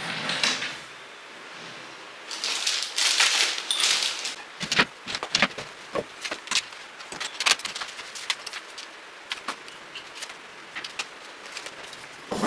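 Small objects on a desk being picked up, moved and set down: a couple of seconds of rustling about two seconds in, then a run of small clicks and knocks, with a sharper knock at the end.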